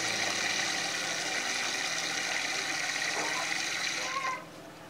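A steady mechanical noise with several held whining tones and faint voices beneath it, cutting off suddenly about four seconds in.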